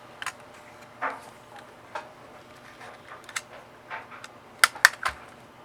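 Small hard clicks and taps of a Nintendo 3DS XL's plastic shell being handled and worked on with small tools, scattered through, with a quick run of three sharp clicks near the end.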